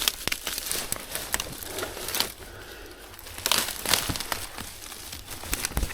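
Dry brush, leaves and twigs rustling and crackling as someone pushes through dense undergrowth on foot, with a few sharper snaps.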